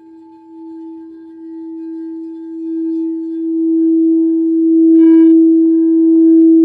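Singing bowls ringing: one low, steady, pure hum that swells louder over the seconds, with a second, higher bowl tone joining in partway. A short, bright ring sounds about five seconds in.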